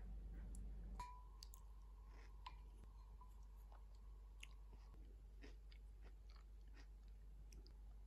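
Faint close chewing of softened but still crunchy soup vegetables, with small scattered clicks of a wooden spoon and chopsticks. A faint steady tone starts with a click about a second in and stops about four seconds later.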